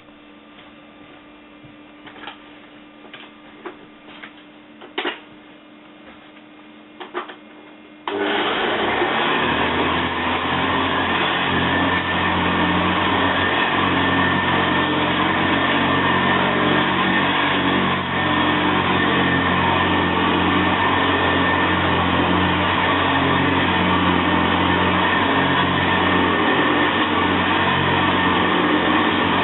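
A few clicks and knocks, then about eight seconds in the Hoover Senior Ranger U4002 upright vacuum cleaner is switched on: its motor and agitator start suddenly, spin up over a second or so, and run steadily and loudly.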